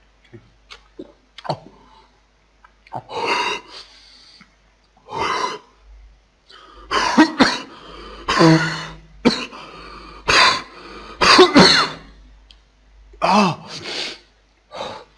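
A man coughing in repeated harsh fits, with throat clearing and some voiced gasps, starting about three seconds in and coming thickest in the middle. The coughing is brought on by the burn of very spicy sauce he has just swallowed.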